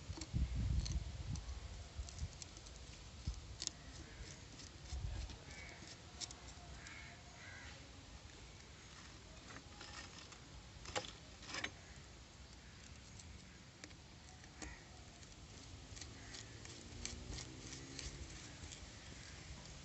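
Faint, scattered clicks and taps of a screwdriver working a Phillips screw into a motorcycle's oil pump and rotor filter cover, with a few soft knocks of the parts being handled near the start and about five seconds in.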